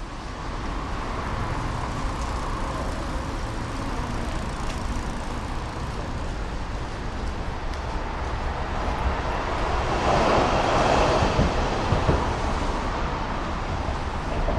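Street traffic noise: a steady rumble of passing vehicles that swells louder about ten seconds in, as something passes close by.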